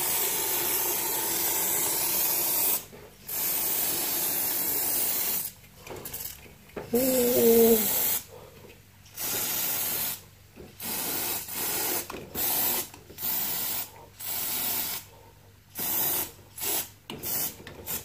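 Aerosol can of air-conditioner fin cleaner spraying onto the indoor unit's coil fins in hissing bursts: several long sprays of one to three seconds, then a run of shorter squirts about a second apart. A brief steady tone, the loudest moment, sounds about seven seconds in.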